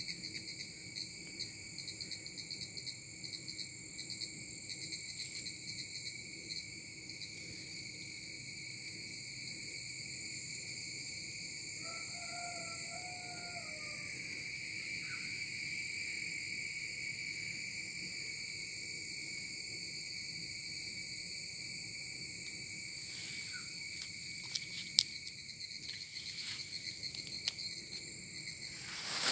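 Steady chorus of insects trilling, a continuous high-pitched drone that swells a little in the middle. A short call rises and falls about twelve seconds in.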